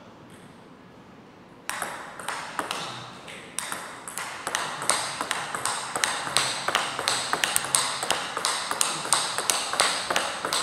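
Table tennis ball being struck back and forth in a quick rally: sharp, even clicks of the ball off the rubber paddles and the tabletop, about three or four a second, starting about two seconds in.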